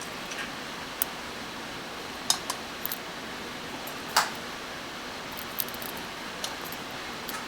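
Scattered light metallic clicks and taps of small watchmaking tools and parts at a watch bench, the loudest about four seconds in, over a steady room hiss.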